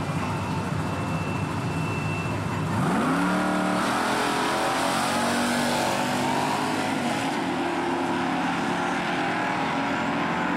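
Dodge Ram pickup's Hemi V8 rumbling at the starting line, then launching about three seconds in: the revs climb under full throttle and drop at a gear shift as the truck accelerates away down the drag strip.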